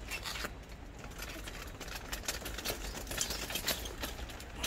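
Faint, irregular scuffing and crackling of steps on a gritty path strewn with dry leaves, ending with a short cat meow that falls in pitch.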